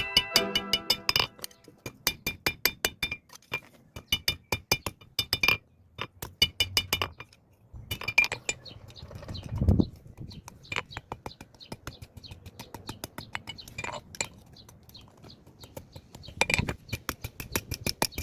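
Hammer striking metal on an anvil in fast runs of ringing, clinking blows, several a second, thinning out to scattered strikes after about five seconds, with one heavier dull thud near the middle.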